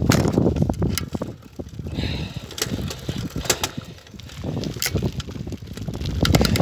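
Wind buffeting the microphone over the tyre and frame noise of a bicycle riding on an asphalt road, swelling and dipping, with scattered sharp clicks and rattles.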